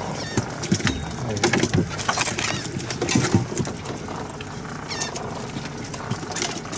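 Live shrimp and small fish clicking and pattering in a culling box as hands sort through the catch, a steady run of short irregular clicks.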